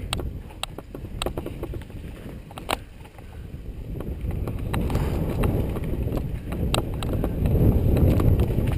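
Wind and trail rumble on a helmet-mounted GoPro as a mountain bike descends a dirt trail at speed. The rumble grows louder from about halfway through, with scattered clicks and knocks from the bike over the bumps.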